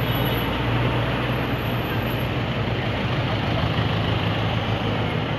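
A motor vehicle's engine running with a steady low hum, over the continuous noise of street traffic.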